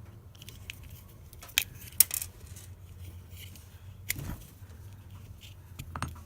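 A remote head car key being taken apart with a screwdriver: a few sharp clicks and clinks of small plastic and metal parts, the loudest two about a second and a half and two seconds in, over a low steady hum.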